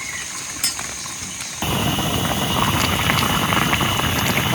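Vegetables sizzling and frying in a hot pan, a dense crackling that starts suddenly about a second and a half in, after a quieter stretch with a few faint clicks.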